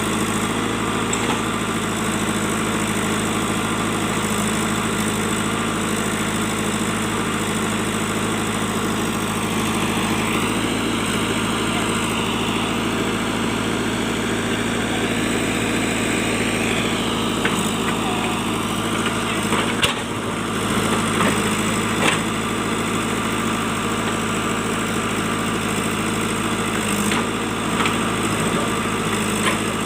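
JCB backhoe loader's diesel engine running steadily, with a higher whine that rises and falls in the middle and a few sharp knocks in the second half.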